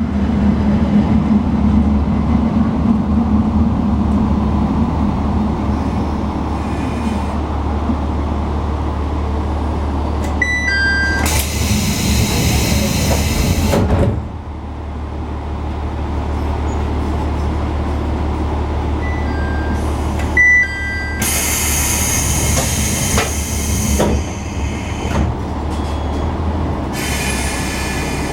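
Diesel railcar idling with a steady low engine hum while its passenger doors operate twice: each time a short two-note chime sounds, then the doors slide with a loud hiss of air for about three seconds, the first ending in a knock as they shut. A shorter hiss comes near the end.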